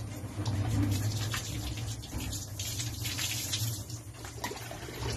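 Water poured from a plastic dipper over a wet dog's coat, splashing down onto the floor, loudest in the middle of the pour.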